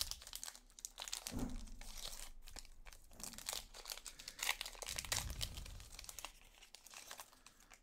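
Foil wrapper of a Panini Prizm basketball card pack being torn open and crinkled by hand: a run of crackling rustles that thins out near the end.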